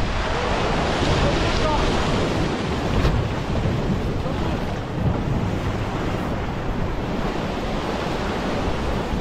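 Ocean surf breaking against a rock shelf and washing across it, a continuous rushing wash, with wind buffeting the microphone as a low rumble underneath.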